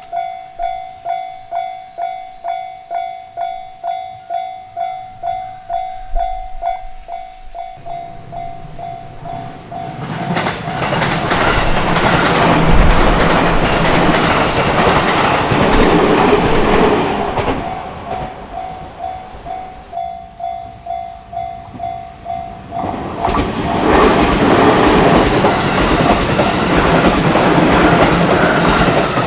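Japanese level-crossing warning bell ringing in an even, repeating ding a little under two times a second, then a train passes over the crossing about ten seconds in, with a loud rumble and clatter of wheels on the rails. The bell is heard alone again briefly before a second train rumbles through from about 23 seconds in.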